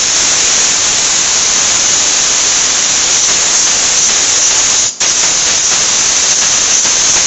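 Compressed air hissing loudly and steadily from the triggered blowgun and spray gun, expelling waterborne cleaning solution. The air cuts out for an instant about five seconds in, then resumes.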